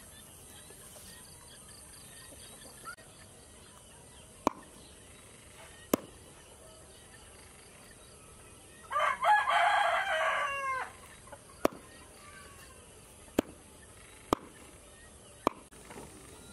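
A rooster crows once, about nine seconds in: a call of about two seconds that drops in pitch at its end. A few sharp single clicks sound before and after it.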